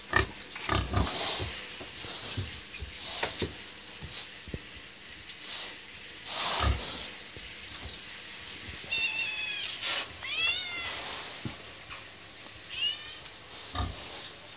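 A cat meowing a few times, short high calls in the second half, over knocks, thumps and rustling from pigs moving about a straw-bedded wooden pen.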